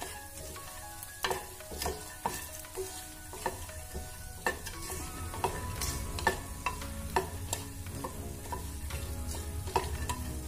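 A spatula stirring fox nuts (makhana), dried red chillies and bay leaves frying in mustard oil in a frying pan. A steady sizzle runs under irregular clicks and scrapes of the spatula against the pan.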